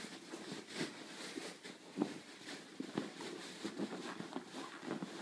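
English setter puppy scuffling and pouncing on a fabric beanbag: a run of irregular soft thumps and scuffs, the sharpest about two and three seconds in.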